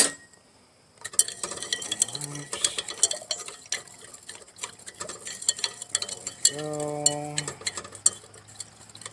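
Glass stirring rod clinking and scraping against the inside of a glass beaker, stirring potassium antimony tartrate into water to dissolve it: a run of light, irregular clicks. A brief steady hum sounds about six and a half seconds in and lasts about a second.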